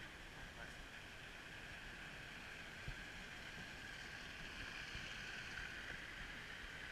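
Monte wicker toboggan's wooden runners sliding over the asphalt road, a steady scraping hiss that grows a little louder in the second half. A single knock about three seconds in.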